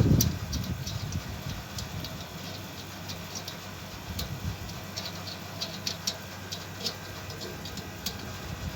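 Light, irregular clicks and taps of a screw being tightened and metal dish-mount parts being handled.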